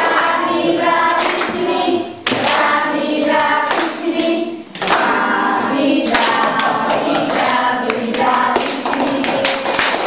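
A group of voices singing a song together, with hands clapping along, the claps thickest in the second half.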